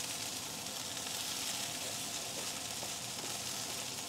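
Cubed potatoes frying in bacon fat in a cast iron skillet, with the lid off so they crisp up: a steady sizzle.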